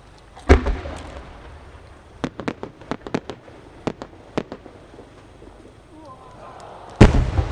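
A 10-inch aerial firework shell: a deep launch thump about half a second in, then a string of sharp small pops as the effects attached to the rising shell go off, and the loud boom of the main burst near the end.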